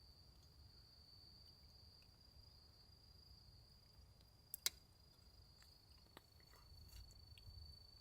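Near silence with a faint, steady, high-pitched insect trill, like a cricket's, and two sharp clicks in quick succession about halfway through, followed by a few faint ticks.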